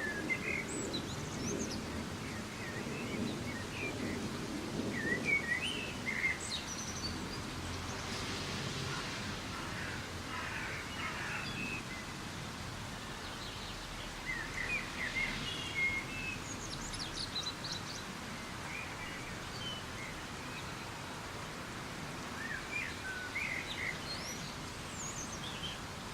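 Soft steady rain hiss with scattered bird chirps and short whistled calls throughout. A low rumble of thunder dies away over the first few seconds.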